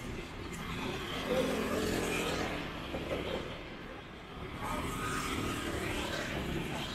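Street traffic: motor vehicles passing close by, one swelling up about a second in and another about five seconds in.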